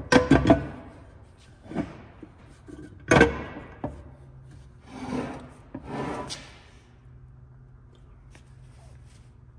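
Cast aluminium Honda K-series transmission case halves being worked together: a few knocks and clunks as the upper case is set down, the loudest about three seconds in, then two scraping rubs as it is pressed home. The case is a tight, rough fit, which the builder puts down to damage from a previous breakage and a chewed-up dowel pin.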